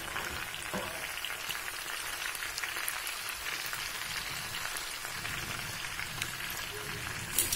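Chicken leg pieces sizzling steadily in a pan of oil on a low gas flame, with fine crackling and spitting. There is a brief sharp clink near the end.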